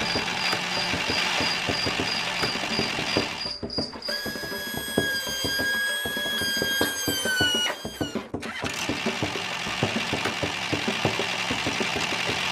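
A small motor-driven mechanism running with a fast, dense clatter and a pulsing high whine. For about four seconds in the middle this gives way to a steady tone with several pitches, which slides down and cuts off before the clatter starts again.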